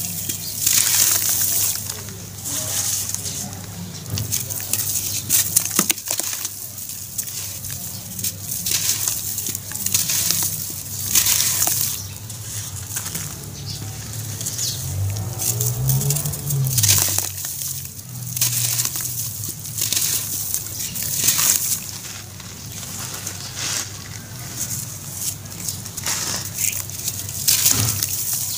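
Soaked slabs of charcoal ash crushed and crumbled by hand in a basin of water: a string of wet, gritty swishes and splashes, roughly one every second or two, as chunks break apart and stir the ashy water.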